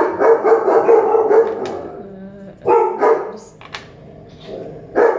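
A dog barking loudly in repeated bursts: a quick run of barks at the start, two more a little under three seconds in, and another near the end.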